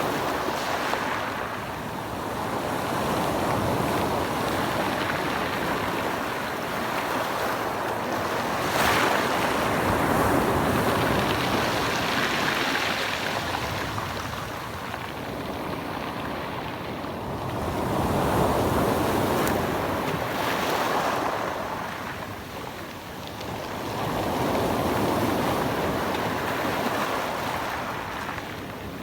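Sea waves washing in, a rushing noise that swells and fades every several seconds, with a sharper splash about nine seconds in. Light wind on the microphone.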